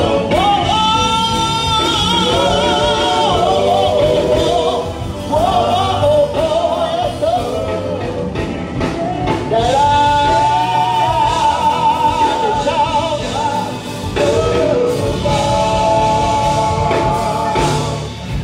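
Male gospel vocal group singing live through microphones, with long held notes that waver in vibrato over a steady low accompaniment.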